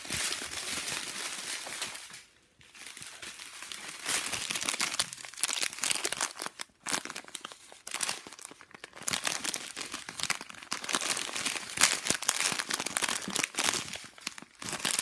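Small clear plastic zip bags of diamond-painting drills crinkling and rustling as they are handled, in irregular crackles with brief lulls about two and a half seconds in and again around seven seconds.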